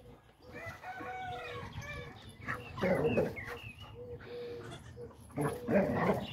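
Dog barking in play at a goat: two louder bursts of barks about three seconds and six seconds in, after a run of shorter pitched calls in the first two seconds.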